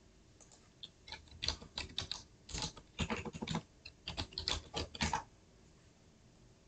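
Typing on a computer keyboard: a quick run of keystrokes for about four seconds, then it stops.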